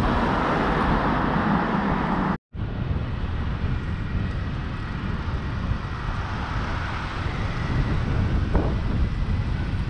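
Wind rushing over the microphone of a camera on a moving bicycle, over a bed of city traffic noise. The sound cuts out for a moment about two and a half seconds in.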